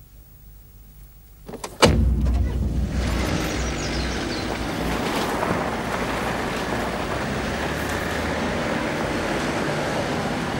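A sharp knock about two seconds in, then a car's engine and road noise running steadily as it drives off.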